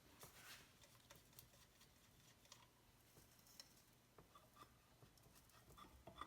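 Near silence with faint, scattered light ticks and clicks of small metal parts being handled.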